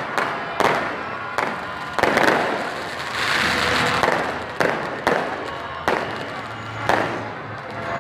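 Fireworks going off in quick succession: sharp bangs every half second to a second, with a longer hissing crackle near the middle.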